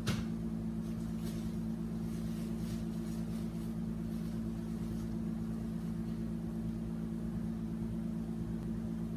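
A steady low machine hum, with a click right at the start and faint rustling of paper and cloth as a folded cardigan is taken out of a box.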